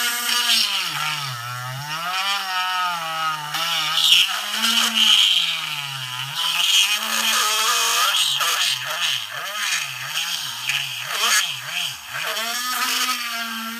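Small handheld rotary tool with a steel cutting bit cutting through a hard plastic model car body shell. The motor's whine keeps dipping in pitch and recovering as the bit bites into the plastic, with a grinding rasp over it.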